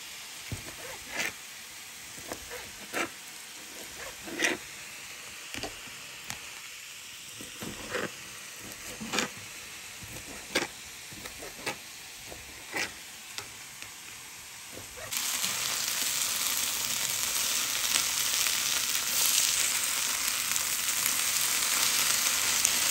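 A knife cutting on a cutting board, one sharp knock about every second, over a faint sizzle. About 15 s in, the sound turns into the loud, steady sizzle of sliced smoked meats frying in a dry pan.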